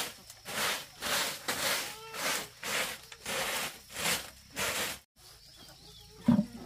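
Rhythmic scraping strokes, about two a second, which stop abruptly a little after five seconds in; a single low thump near the end.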